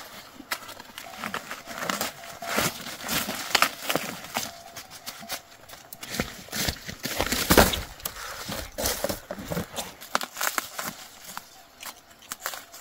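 Dry corn leaves and husks rustling and crackling as ears of corn are broken off the stalks by hand: a busy, irregular run of sharp snaps and cracks, the loudest a little past the middle.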